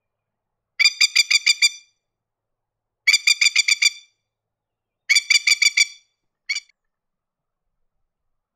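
Masked lapwing giving its loud staccato chattering call: three quick rattles of about seven sharp notes each, a second or so apart, then one short final burst.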